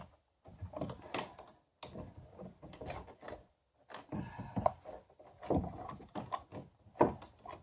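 Irregular small clicks and light knocks of hands handling screws and the plastic parts of a kayak rudder control knob.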